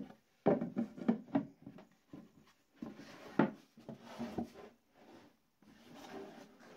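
Plywood box and its tilting frame handled and turned over on a wooden bench: a string of wooden knocks and clatters with sliding and rubbing between them, the sharpest knocks at the very start and about three and a half seconds in.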